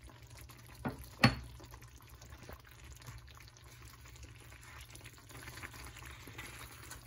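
Cream sauce simmering in a frying pan, a faint bubbling with small ticks as a spatula moves through it. Two sharp knocks about a second in, the second one louder.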